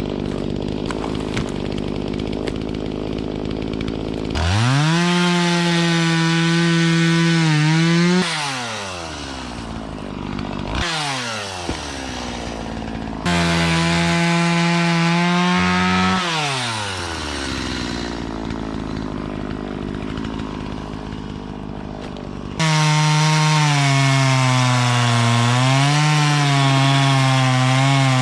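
Stihl two-stroke chainsaw idling, then opened to full throttle three times, each time revving sharply and winding back down to idle. During the last run the pitch dips and recovers repeatedly as the chain bogs in the wood while cutting.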